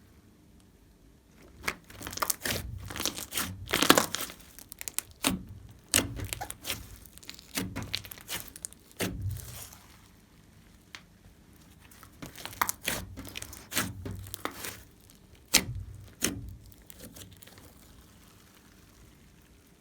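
Glossy slime being squeezed, stretched and folded by hand, with sticky crackling and sharp clicks in two busy spells, quieter in between and near the end.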